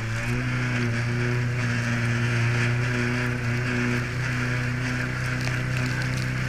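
A small aluminium boat's engine running steadily at speed, a low hum with a few steady overtones, with water rushing and splashing along the hull.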